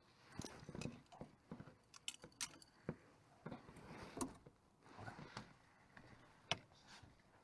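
Faint, irregular clicks, knocks and light rattles of small hard objects being handled.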